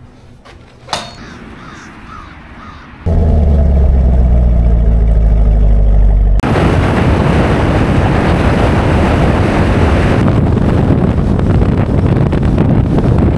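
Car engine idling steadily through quad exhaust tips, a loud low hum. About three seconds later it cuts abruptly to loud, steady wind and road noise on the microphone, held outside a car moving at highway speed.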